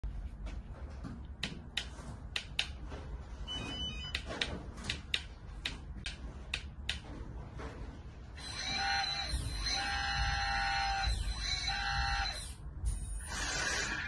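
A 1/12-scale hydraulic RC road roller model powering up: a string of sharp clicks, then electronic buzzing tones in three stretches. Near the end a rushing hiss starts as the model begins to move.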